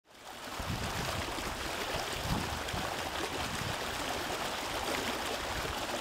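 Shallow stream water flowing and splashing steadily over rocks, fading in at the start.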